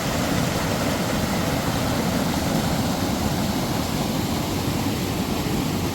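Waterfall and river rushing: a steady, even roar of falling water.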